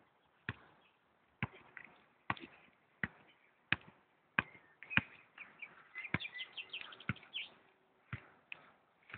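A soccer ball being juggled with bare feet and knees: about a dozen sharp, dull thuds, one touch roughly every three-quarters of a second.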